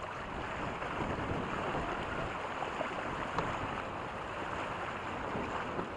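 Water rushing and splashing along a sailing catamaran's hull as it moves through light chop, mixed with wind buffeting the microphone; a steady noise with no distinct events.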